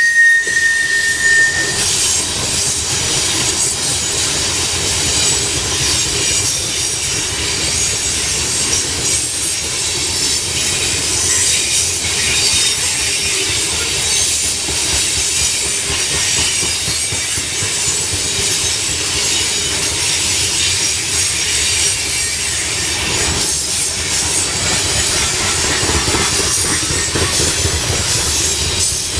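TopGon coal gondola cars of a freight train rolling steadily past, steel wheels running on the rails. A high, thin wheel squeal dies out about two seconds in.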